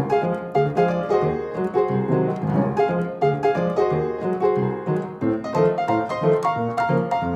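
Background music: a light piano tune of quick, evenly repeated notes.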